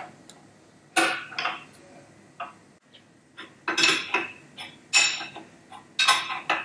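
Metal-on-metal clinks as a seal driver tool is fitted into a Dana 60 axle housing. From about halfway, short bursts of ratchet-wrench clicking come roughly once a second as the tool is turned, pressing the new inner axle seal into the axle tube to its set depth.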